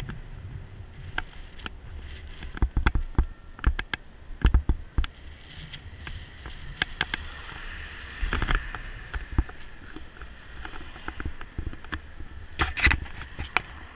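Irregular knocks and rattles over a low rumble as a small-wheeled ride with the camera on it rolls over the bridge surface, with a thicker run of knocks near the end.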